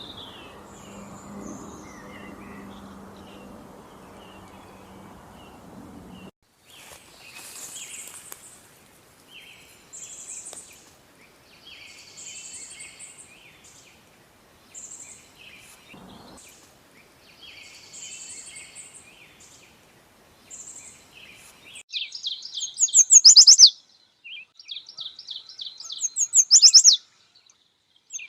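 Songbirds singing: short high song phrases repeat about every two seconds, then loud rapid trills take over about 22 seconds in. For the first six seconds a low steady hum with background noise runs under the song, then cuts off suddenly.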